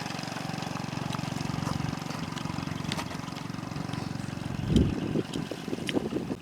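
A small engine running steadily with a fast, even pulse. About three-quarters of the way in there is a low thump, followed by a few short scattered sounds.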